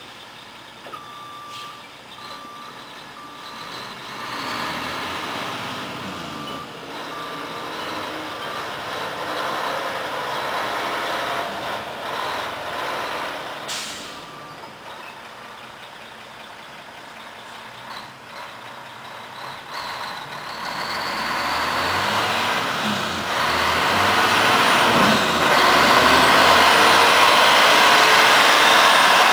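1988 Mack RD688S tri-axle dump truck manoeuvring: its reversing alarm beeps steadily, about three beeps every two seconds, for the first dozen seconds, with a brief sharp hiss of air near the middle. Then the diesel engine grows steadily louder as the truck pulls up and drives past close by.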